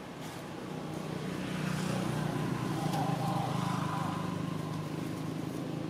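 A motor vehicle's engine running, a steady low hum that grows louder from about a second in and is loudest around the middle.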